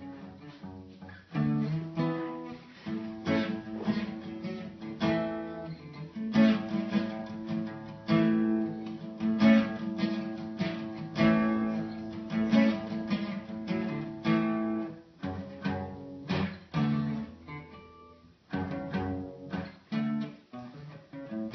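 Guitar music, plucked and strummed.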